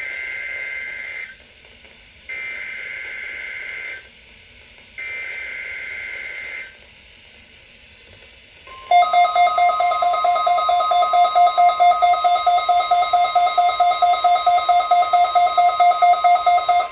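NOAA Weather Radio weekly test alert: three buzzy two-tone bursts of the EAS SAME digital header, about a second apart. About nine seconds in, the steady 1050 Hz warning alarm tone begins, joined by a weather radio receiver's alarm beeping rapidly, about five beeps a second.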